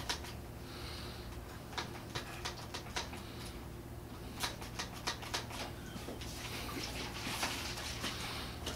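Small plastic trigger spray bottle worked by hand: a scattered series of light plastic clicks as the nozzle is twisted and the trigger tried, with a couple of brief soft hisses of spray, about a second in and again near the end.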